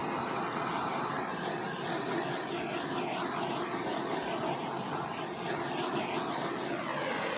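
Handheld butane torch flame burning with a steady hiss, swept over wet acrylic pour paint to heat the surface.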